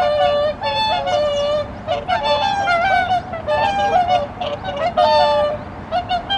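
A flock of whooper swans calling, many short, pitched, trumpeting honks overlapping without a break.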